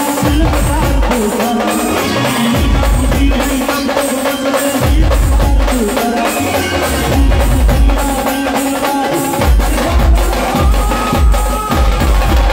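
Indian brass band playing: a sustained melody over heavy bass drum beats, side drums and cymbal hits.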